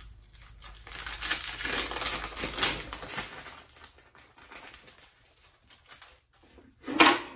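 Plastic vacuum-sealer bags rustling and crinkling as pieces of raw marinated venison backstrap are put in and the bags handled, followed by light scattered ticks and taps. A single loud, sharp clack comes near the end.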